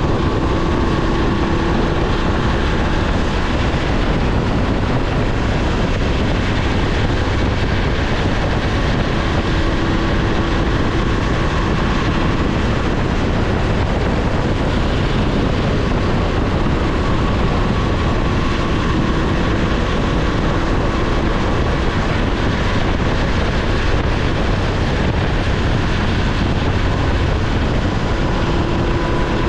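BMW F850GS Adventure motorcycle cruising at about 90 km/h. Its parallel-twin engine runs steadily under a constant rush of wind and road noise.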